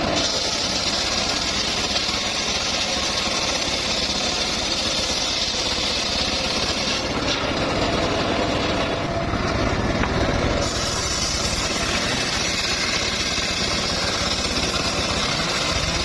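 Engine-driven sawmill running steadily, with a high hiss through roughly the first seven seconds that then drops away.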